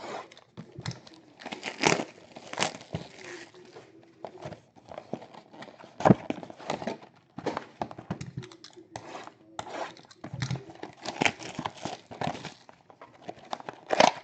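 Trading-card pack wrappers being torn open and crinkled while cards are handled: a run of irregular crackles and short knocks, the sharpest about six seconds in.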